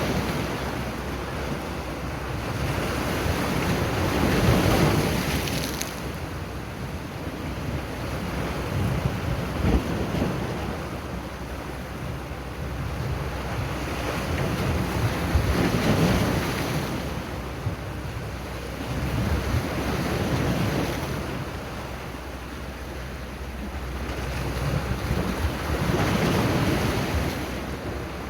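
Sea waves breaking and washing in, swelling and easing every few seconds, with wind buffeting the microphone.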